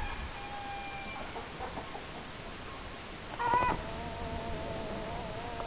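A bird's call: a short, loud pitched note about three and a half seconds in, running into a long wavering held note of about two seconds. A fainter held note sounds briefly near the start.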